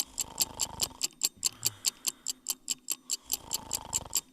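Fast clock-ticking countdown effect, about five ticks a second, over a looped snoring sound effect: a low, rattling snore about a second long near the start and again near the end.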